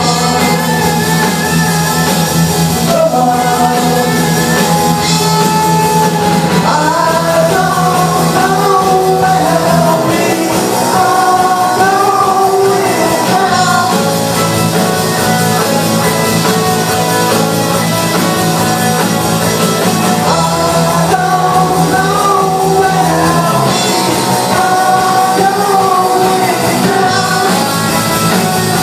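Live rock band playing, with a lead vocalist singing over guitar and a steady bass line.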